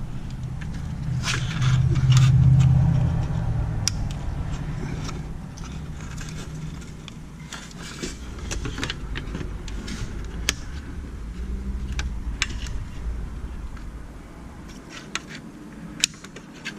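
Scattered light clicks and taps of plastic instrument-cluster parts being handled and the PRNDL display being fitted back in place, over a low rumble that swells about two seconds in and then fades.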